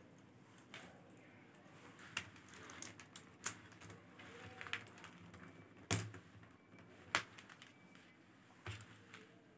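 Faceted beads of a beaded bag clicking against each other as the beadwork is handled and stitched: a string of sharp, light clicks, the loudest about six and seven seconds in.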